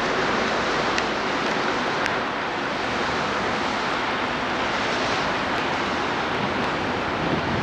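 Steady hiss of wind on the microphone over the low running sound of a distant four-section 2TE116 diesel locomotive consist, with a couple of faint ticks.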